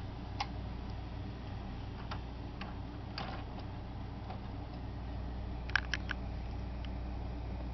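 Steady low hum with hiss, broken by a few light clicks, with three quick clicks close together about six seconds in.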